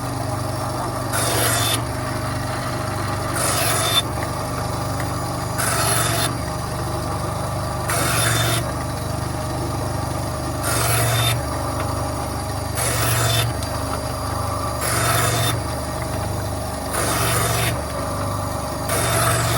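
Bandsaw running steadily, its blade making nine short cuts into wood, one about every two seconds, each lasting under a second and louder than the machine's hum.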